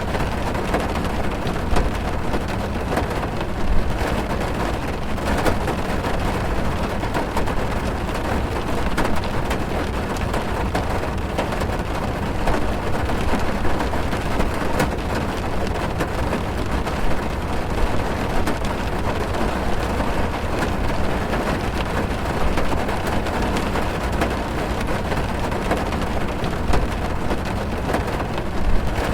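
Downpour drumming on a car's roof and glass, heard from inside the cabin: a steady hiss with a dense patter of single drop hits and a few louder strikes.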